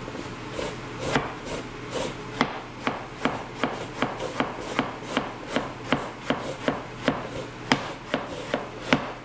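Kitchen prep at the counter: a knife slicing a red onion on a plastic cutting board and a hand grater shredding a vegetable. Short sharp taps repeat evenly about two or three a second over a steady scraping.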